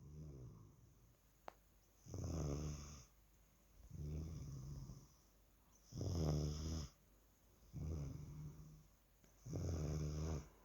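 Steady snoring: five rough snores at a regular pace of about one every two seconds, each lasting about a second, with a low rumbling pitch.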